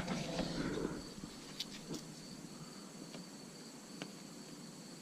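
Handling noise from a phone and magnetic mount being fitted by hand: a brief rustle, then a few light clicks, over a faint steady high whine.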